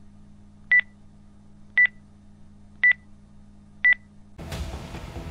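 Countdown timer sound effect: a short high electronic beep about once a second, four times, over a low steady hum. Music comes in near the end.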